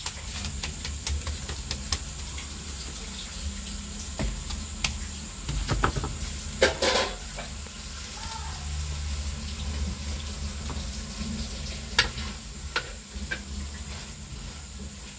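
Corned beef sizzling as it fries in a cast-iron wok, with a metal spatula scraping and stirring through it. Scattered sharp clicks and crackles throughout, with a louder run of scraping strokes around the middle.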